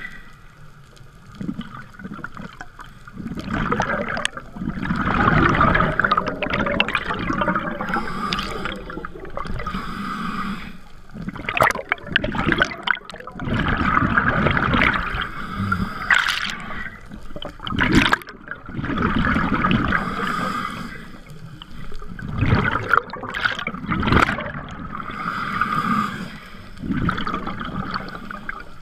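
Underwater scuba breathing through a regulator: a hissing inhale alternating with a bubbling, gurgling exhale, repeating about every five to six seconds.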